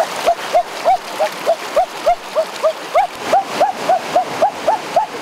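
Fast mountain stream rushing and splashing over rocks, with a rapid, regular series of short chirping calls on top, about four a second, each rising then falling in pitch.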